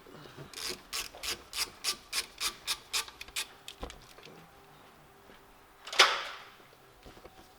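Socket ratchet working the oil drain plug loose: a run of short rasping ratchet strokes, about three a second, for about three seconds. About six seconds in, one sharp loud clank with a short ring.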